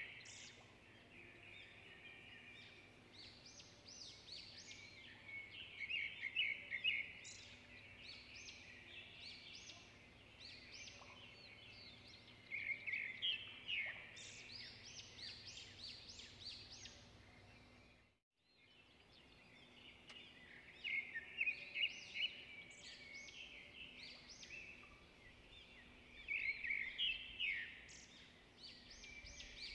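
Birds chirping and twittering in clusters of quick high calls that come back every six or seven seconds, over a faint steady hum. All sound cuts out for a moment about 18 seconds in.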